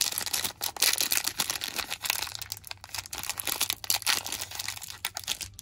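Foil wrapper of a 1994 Classic 4 Sport trading-card pack crinkling and tearing as it is pulled open by hand: an irregular run of crackles.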